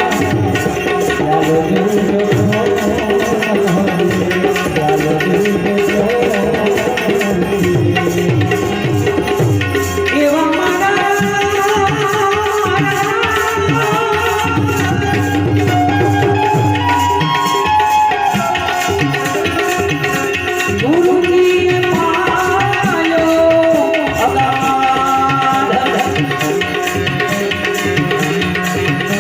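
Gujarati bhajan music: tabla playing a steady rhythm under a harmonium melody of held, reedy notes.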